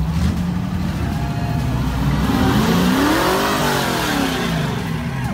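A car engine idling, then revved once about halfway through, its pitch climbing and dropping back down to idle.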